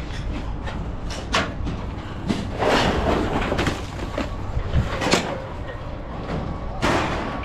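Scrap being handled by hand: several short metal knocks, rattles and scraping noises, over a steady low rumble.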